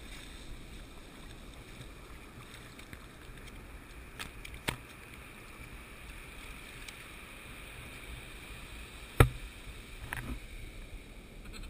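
Shallow surf washing over wet sand, a steady hiss of water, with a few sharp knocks, the loudest about nine seconds in.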